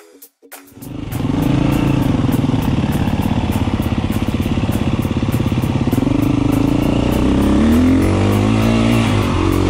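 Enduro dirt bike engine revving up and down under load while riding, starting about a second in, with a rising rev near the end.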